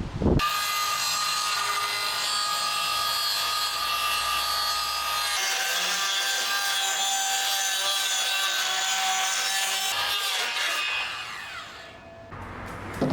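Power saw ripping plywood into strips, the motor running at a steady pitch, then winding down and stopping near the end.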